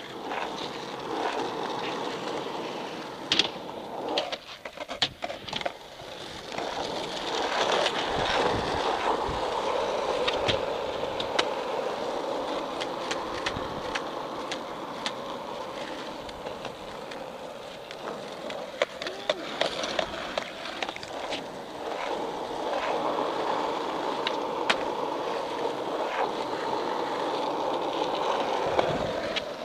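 Skateboard wheels rolling steadily over rough concrete, broken by sharp clacks of the board hitting the ground during flatground tricks, a cluster of them a few seconds in and more later.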